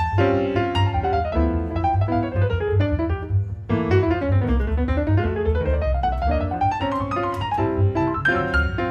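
Jazz piano soloing over a plucked upright double bass, in a swing tune. Near the middle the piano plays a quick run that falls and then climbs back up.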